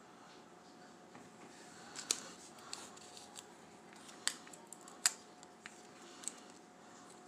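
A handful of sharp, irregular clicks and light handling noise from hands working on a plastic model car kit, the loudest three about two, four and five seconds in.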